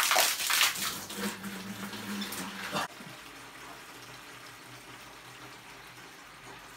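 Pressurized boiler system water spraying hard out of the open fitting of a just-removed expansion tank and splashing over the tank and the man holding it. The system pressure still on the bladder drives it. About three seconds in the spray cuts off suddenly, leaving only a faint hiss.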